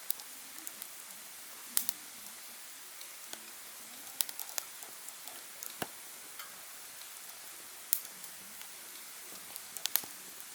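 Wood fire crackling: irregular sharp snaps and pops over a steady soft hiss, with a few louder pops spread through.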